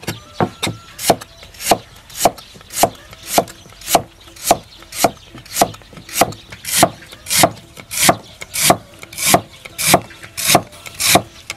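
Chinese cleaver slicing potato and lotus root into thin rounds on a thick wooden chopping block, each stroke a sharp knock of the blade on the wood, about two strokes a second at an even pace.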